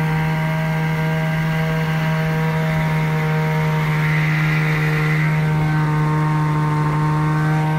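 Ski-Doo 850 two-stroke snowmobile engine running at a steady, unchanging pitch, held at constant throttle.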